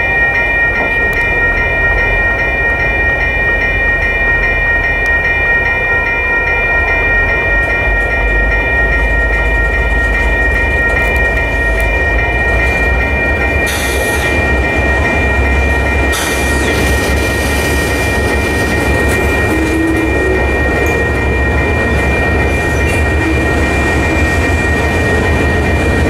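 Railroad crossing bells ringing steadily over the low rumble of a BNSF freight train's cars rolling through the crossing. Short bursts of higher-pitched noise come from the train about halfway through.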